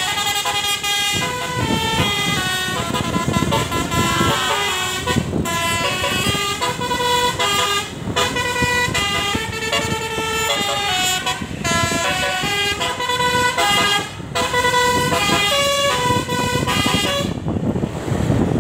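Tunggal Jaya bus's telolet basuri horn playing a tune in stepped notes, with engine noise underneath. The melody stops near the end.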